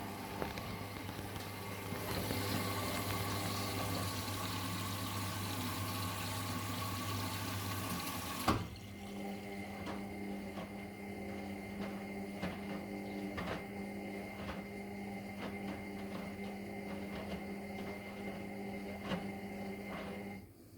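Indesit washing machine filling with water through its inlet valve at the start of the wash: a steady rush of water with a hum, cut off by a click about eight and a half seconds in. After that a quieter steady hum with light, irregular clicks runs on until it stops near the end.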